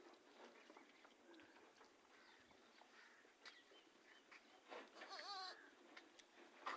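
A goat bleats once, a faint wavering call about five seconds in, over light rustling and small clicks. A short sharp sound comes near the end.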